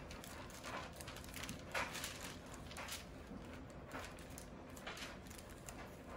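Hands pinching crescent roll dough on parchment paper, with faint, short, irregular rustles and scuffs of the paper. One scuff about two seconds in is louder than the rest.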